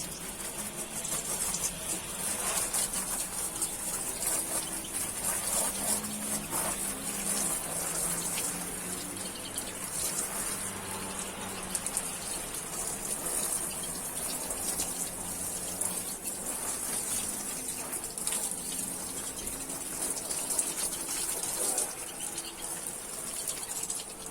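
Water gushing steadily from a hose or spray, wetting down an aviary to cool it in the heat.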